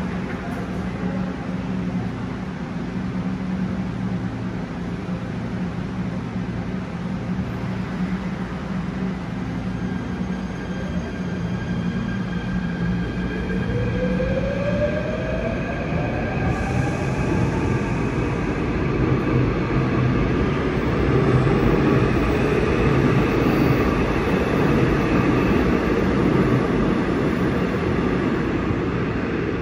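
Seoul Subway Line 7 electric train pulling out of an underground station. A steady hum while it stands, then about 13 seconds in a rising whine from its traction motors as it accelerates away. The running noise swells, loudest a little past the middle, and carries on as it leaves.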